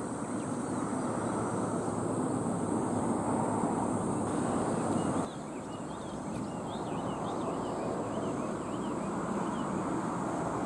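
Open-air trackside ambience: a steady rushing background noise with a high, thin steady tone that stops about five seconds in, followed by a run of short bird chirps.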